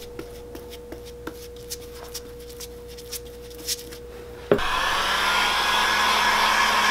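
A few light ticks and taps, then a heat gun switched on with a click about four and a half seconds in, blowing steadily with a rushing hiss. It is being used to reactivate dried glue on the boot's midsole before the sole is stuck on.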